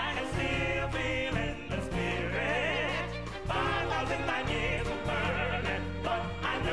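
Tenor vocal trio singing in harmony over a big band and orchestra, with sustained low bass notes underneath. About two seconds in, the voices hold a note with wide vibrato.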